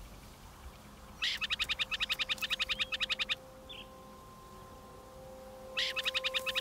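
Burrowing owl's rapid chattering call: two runs of fast, clipped notes, about ten a second. The first lasts about two seconds from about a second in, and the second starts near the end. A soft held music note sounds underneath from about four seconds in.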